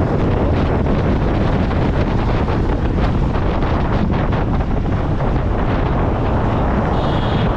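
Wind buffeting the microphone on a moving scooter, a loud steady rush with road and engine noise beneath it. A brief high tone sounds about seven seconds in.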